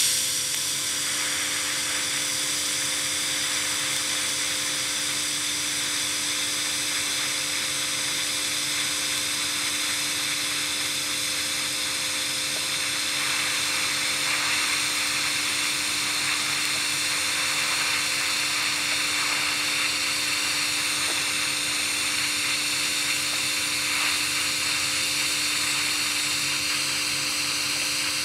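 TIG welding arc burning steadily from a Vevor 210A TIG welder: an even hiss with a constant hum underneath.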